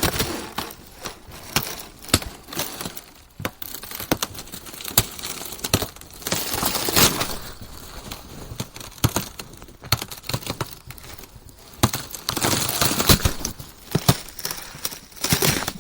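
Ice cracking: an irregular run of sharp cracks and snaps, with stretches of dense crackling about six to seven seconds in and again around twelve to fourteen seconds in.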